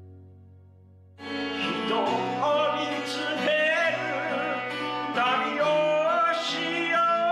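A man singing live into a microphone, his voice wavering in vibrato over guitar accompaniment. The singing starts suddenly about a second in.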